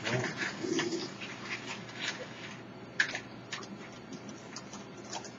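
Raccoons at food dishes: a low call early on, amid scattered sharp clicks and crunches as they eat dry dog food kibble. The loudest click comes about three seconds in.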